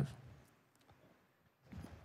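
Faint clicks and crinkles of a small plastic water bottle being handled and opened, close to a headset microphone, with a short sip from it near the end.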